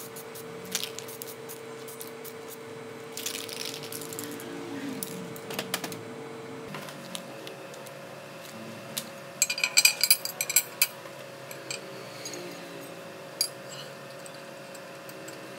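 Two short hisses from an aerosol spray-paint can in the first half. Then a quick burst of metallic clinks and rattles as the cast-metal parts of a pipe wrench are handled. A steady low hum runs underneath.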